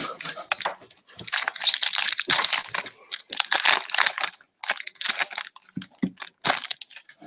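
A foil trading-card pack being torn open and crinkled by hand, in a run of quick, loud rustles, with the cards then handled near the end.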